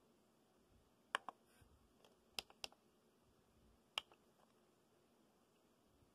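Menu buttons on a FrSky Taranis radio transmitter clicking as its model settings are paged through: about six short, sharp clicks, some in quick pairs, over near silence.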